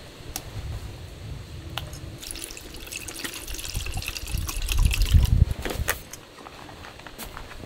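Water poured from a plastic bottle into a metal pot holding a piece of raw pork, splashing and filling for about three and a half seconds, starting about two seconds in. A few short clicks come before and just after the pour.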